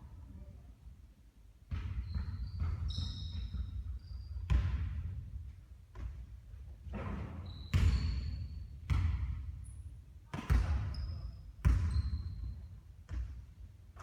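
A basketball bouncing on a hard court, about nine irregular thuds roughly a second apart, each with a ringing tail. Short high squeaks come in between the bounces.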